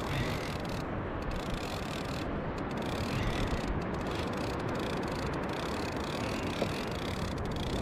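Steady rushing noise of wind on the microphone and sea water around a kayak, with a brief sharp sound near the end.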